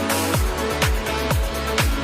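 Electronic dance music with a steady four-on-the-floor kick drum, about two beats a second, over sustained synth chords.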